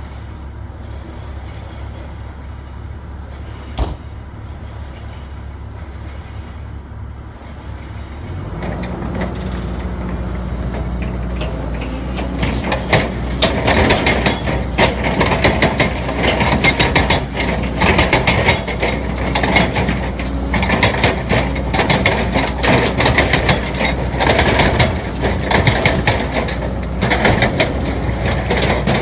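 Excavator's diesel engine running steadily, then throttling up about eight seconds in. From about twelve seconds, dense metallic rattling and clanking sets in over the engine.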